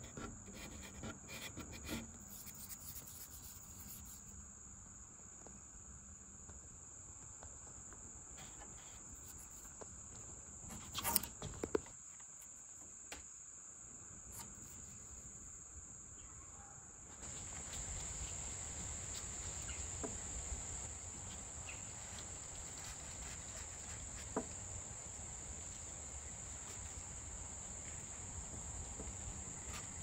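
Steady high-pitched insect trill, with a brief knock or rustle of handling about eleven seconds in.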